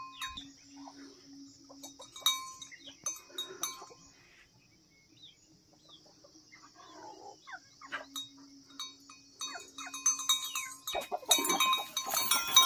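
Metal bells on the collars of chained Tibetan Mastiffs clanking and ringing as the dogs move, with their chains rattling against concrete; the clanking is busiest near the end.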